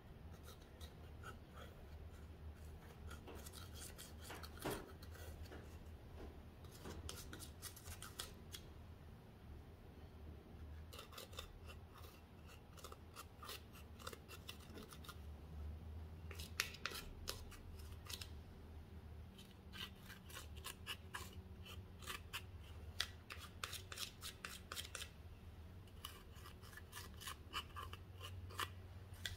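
Pressed eyeshadow being scraped and crumbled out of a palette's pans with a small pointed tool: quick dry scratching strokes in short runs, with brief pauses between.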